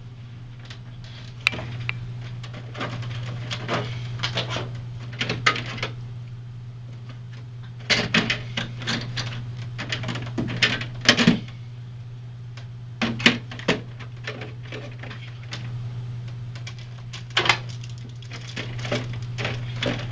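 Plastic drink bottles knocking and clattering against each other and the inside of a mini fridge as they are shoved in and rearranged, in irregular clusters of clacks, over a steady low hum.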